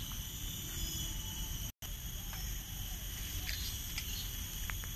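Insects trilling steadily in several even high-pitched tones at once, over a low rumble, with a few faint short bird chirps. The sound cuts out completely for an instant nearly two seconds in.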